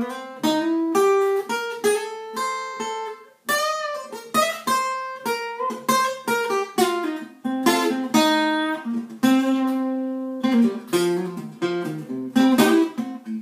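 Acoustic guitar playing a single-note blues lick in C that moves between the mixolydian and minor pentatonic scales: quick runs of plucked notes with a short break about three and a half seconds in and a longer held note past the middle.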